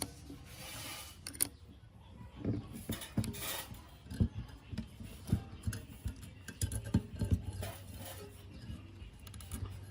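Metal parts being handled: irregular clinks and knocks with a few short scraping or rasping stretches, over a low hum.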